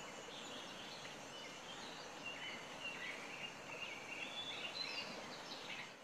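Faint wild ambience: a steady low hiss with a run of short, high chirping calls, most prominent from about two seconds in.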